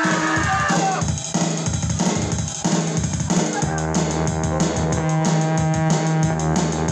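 Live rock band playing an instrumental break: drum kit with guitar. From about halfway through, the band holds steady chords over a low sustained note.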